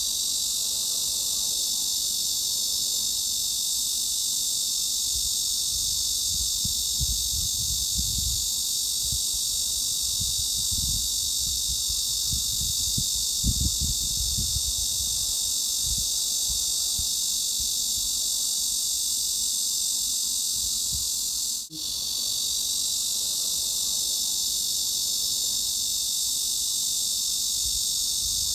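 Cicada chorus: a steady, dense high-pitched buzzing hiss, with a low rumble that swells and fades underneath. It cuts out for an instant about twenty-two seconds in, then resumes unchanged.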